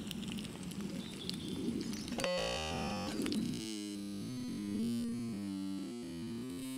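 Faint background hiss, then synthesizer music cuts in about two seconds in: sustained low notes that step from one pitch to another.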